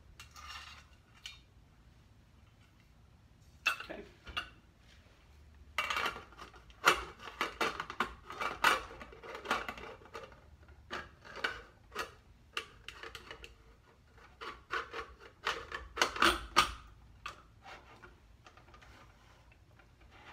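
Stovetop pressure cooker's metal lid being fitted and locked onto the pot: a run of short metal clinks, knocks and scrapes, sparse at first and thickest from about six to seventeen seconds in.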